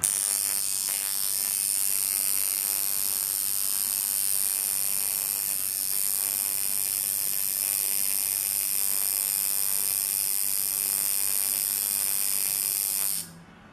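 Tattoo machine buzzing steadily while tattooing skin, with a bright, hissy edge, cutting off near the end.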